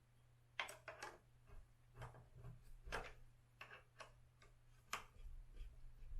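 Faint, irregular metallic clicks and taps from a hex key and bolts as the Onewheel's hub-motor bolts are threaded into the rails by hand, about a dozen in all, over a steady low hum.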